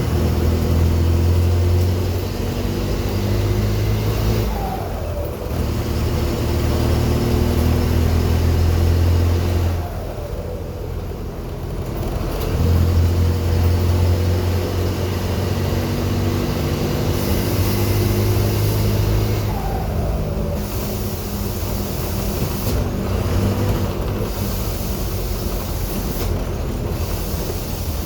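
Mercedes-Benz OM 924 LA four-cylinder turbodiesel of an OF 1519 bus running at raised revs, between about 1200 and 1600 rpm, with a leaking, loose intake manifold. The engine note is held strong for stretches and eases back twice, about ten seconds in and again near the end.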